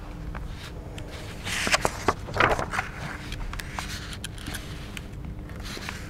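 Handling noise at a lectern: scattered small clicks and a rustle, busiest about two seconds in, over a steady low room hum.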